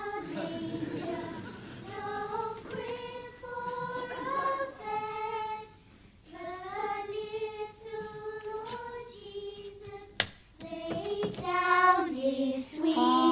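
Group of children singing a slow carol together, holding long notes. A single sharp click cuts in about ten seconds in.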